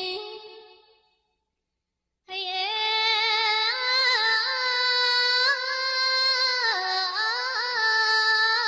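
A woman singing long, held, ornamented notes with no accompaniment. The note fades out about a second in, and after a short silence the singing starts again and carries on.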